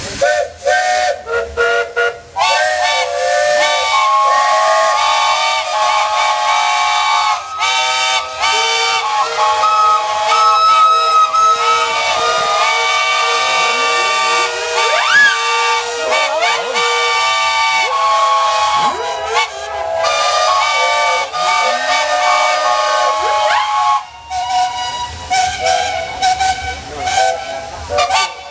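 Steam whistles of many traction engines sounding together: several whistles of different pitches overlapping in one long chorus with a few brief breaks, some sliding up or down in pitch, over a hiss of steam.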